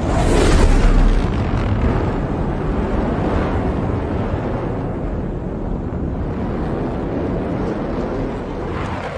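Film sound effects of a flying robot's rocket thrusters and rushing wind: a loud whoosh in the first second, then a steady rush of jet noise and wind.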